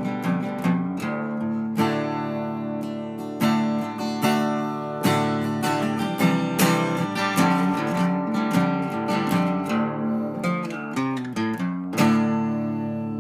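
Background music led by acoustic guitar, picked notes and strums, with a last strummed chord about a second before the end that is left ringing.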